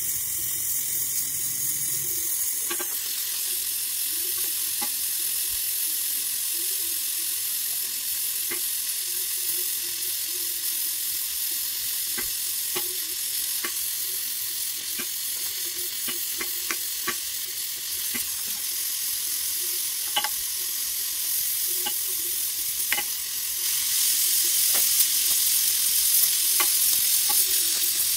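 Gas welding torch flame hissing steadily as filler rod is melted into an aluminum motorcycle engine case, with scattered small crackles. The hiss grows louder about three-quarters of the way in.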